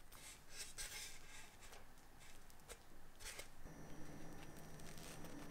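Faint rubbing and rustling of hands rolling a ball of whole-wheat bread dough against a floured wooden board, with a few light ticks. About two-thirds of the way through a faint, steady low hum comes in.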